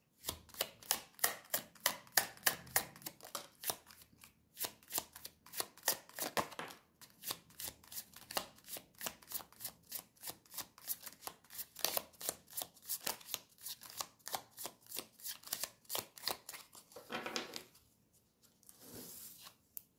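A tarot deck shuffled by hand, the cards tapping softly and quickly, a few taps a second, for most of the time. Near the end come two short rustles.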